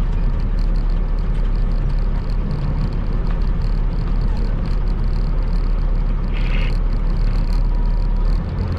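Heavy truck's diesel engine idling steadily, a low rumble heard inside the cab, with a brief hiss about six and a half seconds in.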